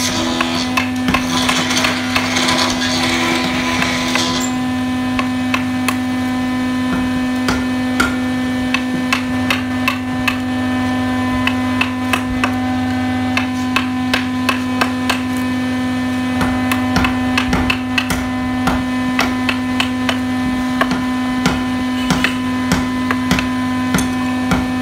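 Hand chisel cutting a carved relief into a hardwood board: irregular sharp knocks about one or two a second, with scraping wood-shaving hiss in the first four seconds. A steady electrical hum runs underneath.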